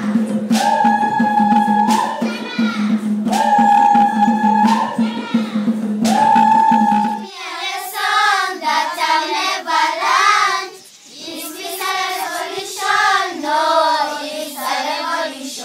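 Music with voices singing over a steady low drone and sharp percussive strokes, a high held note repeating about every two seconds. About seven seconds in it changes abruptly to a choir of children singing unaccompanied.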